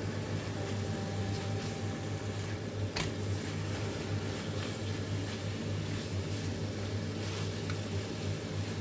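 A silicone spatula stirring chicken pieces in a wok, with soft scrapes and light knocks against the pan and one sharper knock about three seconds in, over a steady low hum.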